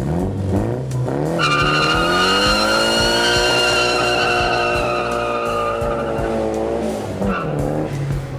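Nissan 240SX's turbocharged SR20DET four-cylinder revs up and the rear tyres break loose in a burnout, a loud steady tyre squeal lasting about five seconds over the engine held at high revs. Near the end the squeal stops and the engine climbs in pitch again as the car pulls away.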